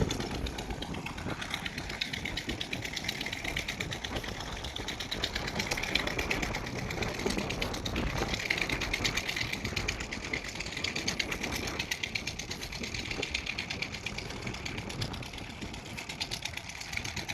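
Long-reach excavator's diesel engine running steadily, with a fast, even mechanical rattle.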